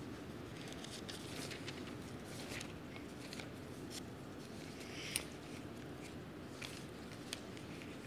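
Quiet room tone with faint scattered rustling and soft clicks, one sharper click about five seconds in.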